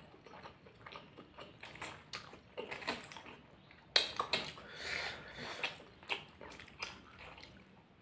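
Close-miked eating of spicy instant ramen noodles: wet mouth clicks and smacks while chewing, with a louder slurp about four seconds in.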